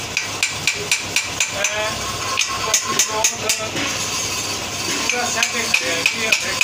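Metal hand-tool clicks on the end cap of a mini electric winch, sharp and regular at about four a second, pausing briefly a little past the middle and then starting again.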